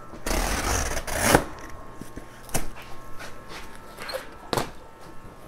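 Cardboard packing scraping and rustling as it is dragged out of a shipping box for about the first second and a half, then a few sharp knocks against the box.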